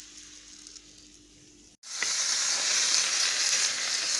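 Egg-and-flour batter sizzling as it fries in a frying pan. The sizzle is fainter at first. It breaks off briefly just under two seconds in and comes back louder and steady.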